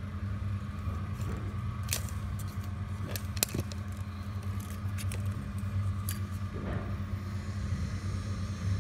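Steady low mechanical hum with a faint high tone over it, and a few light clicks and rattles from a tape measure being handled.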